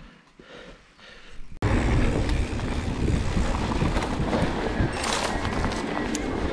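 Mountain bike riding over rough trail: a loud rumble of tyres with steady clattering and rattling of the bike, starting suddenly about a second and a half in after a quieter stretch.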